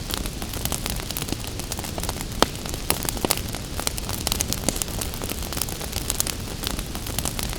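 Wood fire crackling in a fireplace, with frequent sharp pops scattered irregularly, over a steady hiss of gentle rain.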